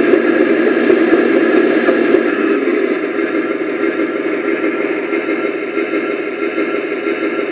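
Recorded tank-engine running sound played by a KV-2 tank model's sound unit through a small speaker. It is a steady, gritty rumble that eases slightly about two seconds in.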